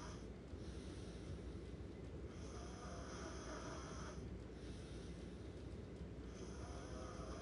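A person snoring in sleep, one slow snoring breath about every four seconds: a full snore in the middle and the next one starting near the end.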